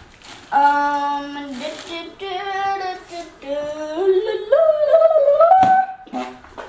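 A young person singing to himself without words: a held note, then a string of notes climbing in pitch, with a single sharp knock near the end.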